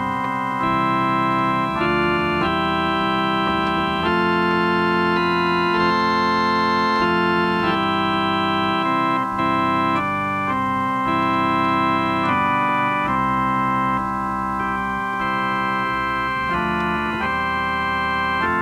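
Slow, sustained organ-voiced chords on a keyboard. Each chord is held without fading and moves to the next every one to two seconds.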